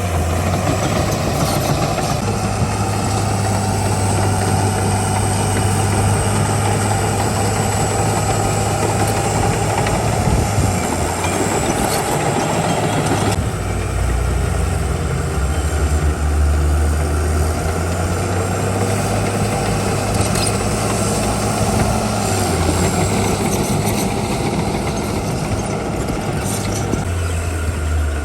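Heavy diesel engine of earthmoving machinery running steadily, its low drone shifting abruptly deeper about halfway through.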